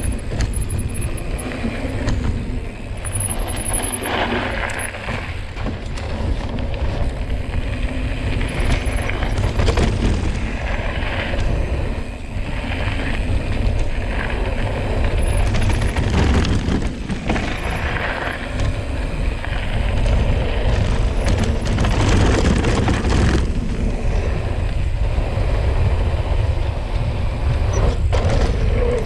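Cube Stereo 150 TM full-suspension mountain bike riding a dirt trail: a steady rush of wind on the microphone, with tyre noise and frequent rattles and knocks from the bike over rough ground.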